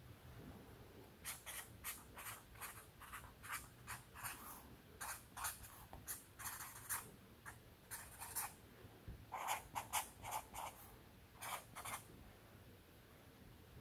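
Green Sharpie marker writing on a pad of pink sticky notes: a run of short strokes of the felt tip across the paper, starting about a second in, with a brief pause partway through.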